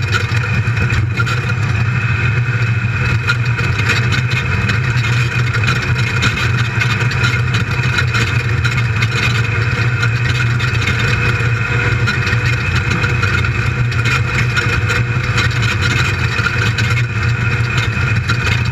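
Built LS1 V8 of an off-road race buggy running steadily at speed, heard from inside the cab.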